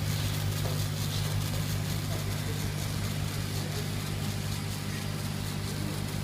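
Laser engraving machine running during picture engraving: a steady low hum with an even hiss over it.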